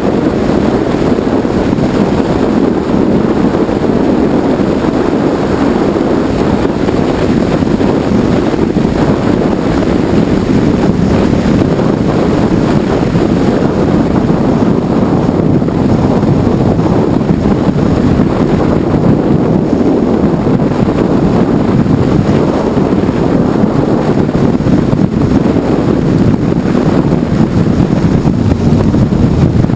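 Steady wind rush over a helmet-mounted GoPro's microphone while riding a Honda VFR750 V4 motorcycle at road speed, with the bike's engine running beneath it.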